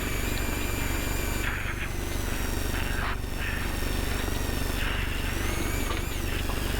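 Off-road race truck's engine and drivetrain running steadily over rough ground, a constant low rumble with a thin high whine that wavers up and down in pitch.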